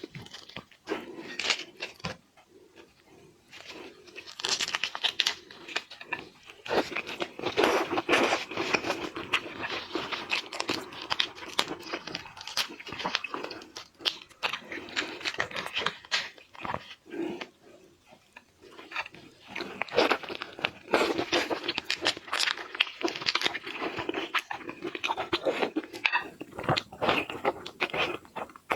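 Close-miked eating of red devil shrimp: biting and chewing with crunching of shell and flesh, in bursts broken by quieter pauses about two seconds in and again around the middle.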